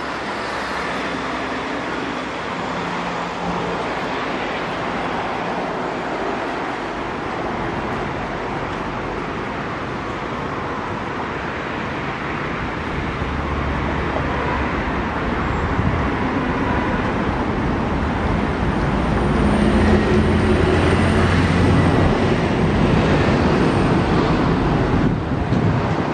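Steady traffic and engine noise with no single clear source. It grows louder in the second half as a low engine rumble swells and then eases.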